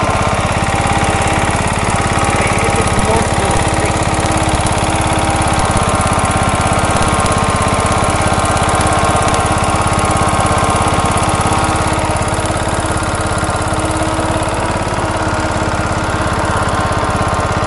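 Engine of an MTD riding lawnmower running at a steady speed, with a fast, even pulse.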